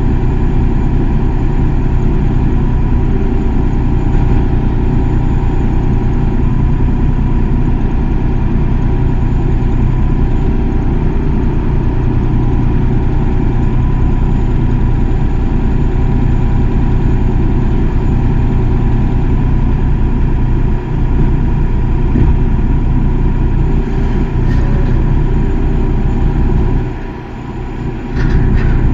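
Excavator's diesel engine running steadily, with a short drop in level about two seconds before the end.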